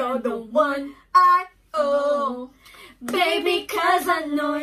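Women singing along together in held, gliding phrases, with short breaks between lines; no backing music is heard.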